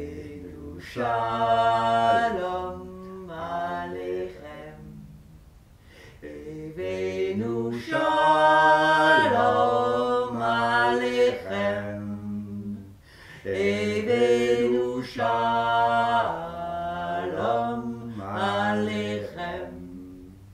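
Unaccompanied singing: a voice sings a slow melody in several long phrases, holding notes and sliding between pitches, with short breaks between phrases.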